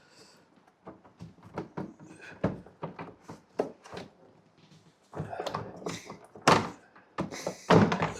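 Hard plastic knocks, clicks and scraping as a Sea-Doo personal watercraft's plastic fairing panel is worked loose and pulled off. The clicks are scattered at first and turn into a denser rattle about five seconds in, with one sharp knock just after.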